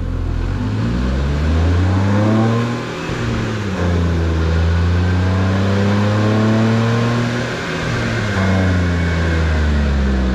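Smart car engine running on a chassis dynamometer, revving up over about two seconds, dipping briefly about three seconds in, then holding high revs before dropping and settling lower near the end.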